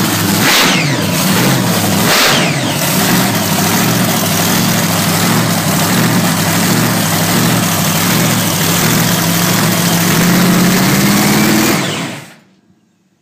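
Supercharged V8 with a roots-type blower in a Holden Gemini, idling loudly. The throttle is blipped twice in the first few seconds, and the engine then runs steadily before cutting off near the end.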